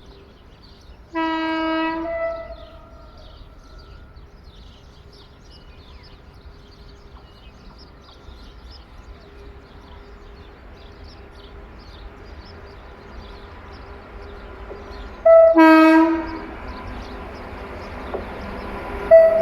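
Horn of an approaching class 269 electric locomotive: one blast lasting about a second just after the start, a second, louder blast near the end, and a short toot just before the end. The rumble of the oncoming train grows steadily louder beneath them.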